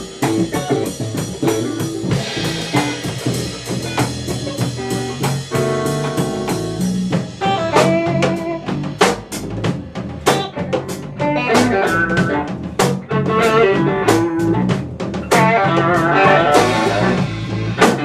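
Live band jam with electric guitar, electric bass and a Pearl drum kit playing together in a bluesy rock groove. The drum and cymbal hits grow busier in the second half.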